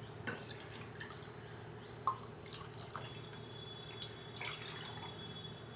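Water dripping in a kitchen, with scattered light ticks and taps over a steady low hum.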